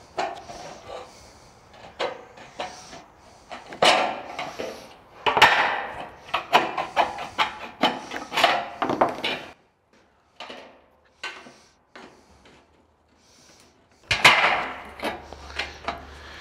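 Aviation snips cutting sheet-metal roof flashing trim: a run of irregular snips with the thin metal rattling and scraping on the bench. The cutting goes quiet for a few seconds past the middle, then starts up again louder near the end.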